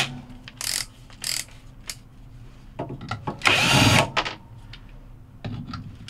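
Cordless drill with a quarter-inch nut driver running in short bursts, backing out screws. The longest and loudest run comes about three and a half seconds in.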